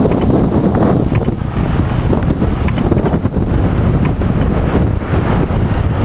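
Wind buffeting the microphone: a loud, steady, fluttering rumble.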